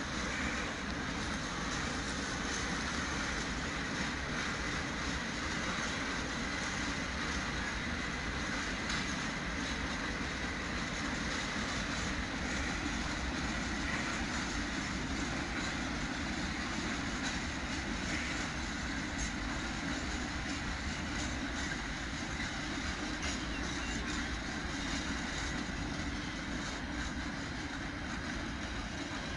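A string of freight wagons rolling slowly along the track while being shunted by an SM42 diesel-electric shunting locomotive, giving a steady, even rumble of wheels on rail with a faint thin squeal held underneath.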